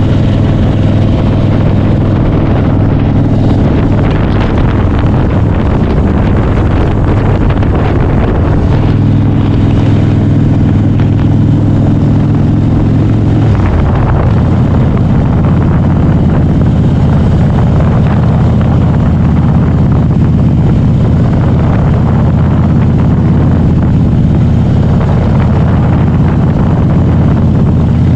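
Harley-Davidson Softail's air-cooled V-twin engine running under way on a ride, with wind buffeting the microphone. The engine note drops about halfway through.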